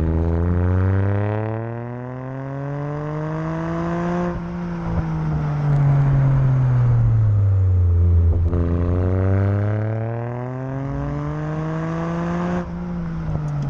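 Car engine pulling up through the revs, its pitch rising for about four seconds, then easing off with the pitch falling slowly; the cycle happens twice.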